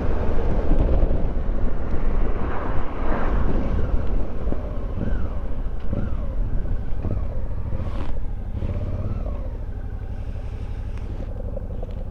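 Motorcycle riding, heard through a helmet-mounted camera microphone: engine and heavy wind noise on the mic, the engine note rising and falling a few times, then the overall sound easing off as the bike slows.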